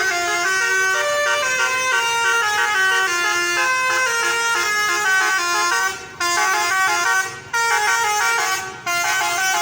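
Telolet basuri musical air horn on a bus playing a tune: several horn tones sound together and step from note to note, with three short breaks in the second half.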